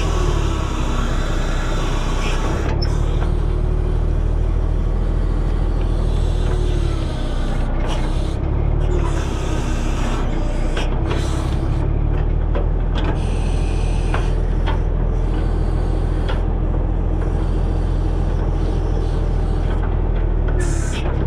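The 1964 Kenworth self-loading log truck's engine running steadily while it drives the log loader's hydraulics. Its note sags and recovers several times as the boom takes load, with scattered clanks and knocks from the loader and the logs.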